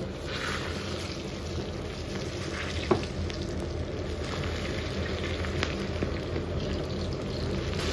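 Cornstarch-coated long beans deep-frying in a wok of hot oil: a steady, vigorous sizzle as the batch goes in and the oil foams up over the whole surface. A single short knock about three seconds in.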